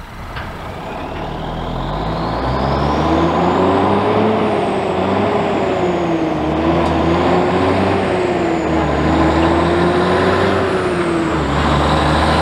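1986 GMC General tri-axle dump truck's diesel engine pulling toward the camera, growing louder over the first few seconds. Its engine note rises and dips a few times as it works through the gears, with a faint high whistle gliding up and down above it.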